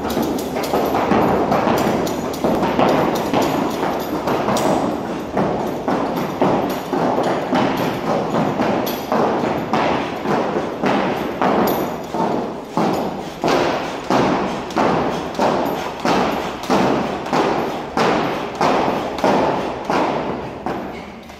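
Heavy battle ropes being whipped in waves, slapping a rubber gym floor in a steady train of thuds. The slaps run close together at first, then settle into distinct strokes about three every two seconds.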